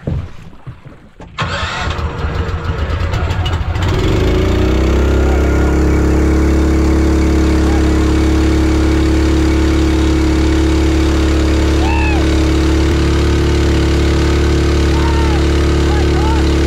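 Jet-powered kayak's engine starting about a second and a half in, speeding up over the next couple of seconds, then running loud and steady as the kayak moves off under power.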